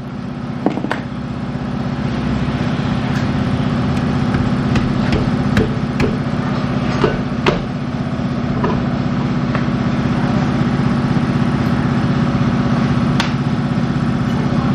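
A steady mechanical hum runs under a scatter of sharp clinks and knocks of metal, most of them in the first half.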